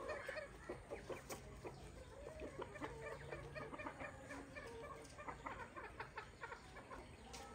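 Chickens clucking faintly: many short calls, one after another.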